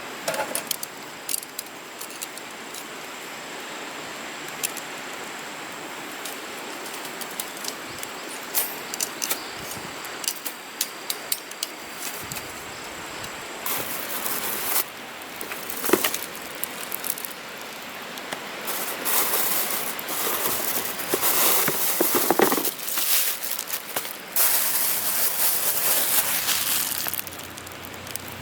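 Wood campfire crackling with frequent sharp pops, with several louder stretches of rustling, hissing noise in the second half.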